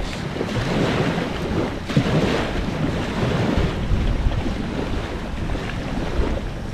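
Wind blowing across the microphone: a steady rush of noise with uneven low buffeting.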